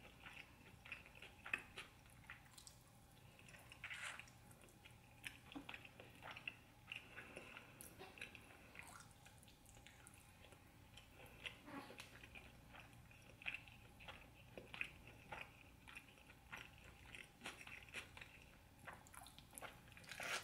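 Faint close-miked mouth sounds of a person eating stewed oxtail by hand: irregular soft wet clicks and smacks of chewing and sucking meat from the bone and fingers.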